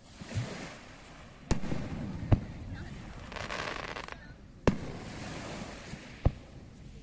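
Aerial fireworks bursting: four sharp booms spaced one to two seconds apart, with a crackling shower midway between them.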